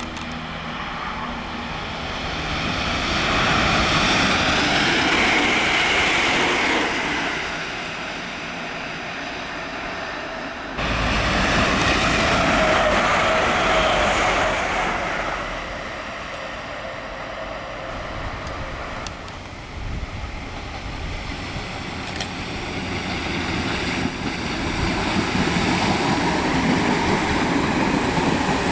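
Trains passing through a station one after another in edited clips, with a steady rush of wheel and rail noise that swells and fades. It cuts sharply to another passing train about eleven seconds in. In the last seconds a suburban electric multiple unit runs past.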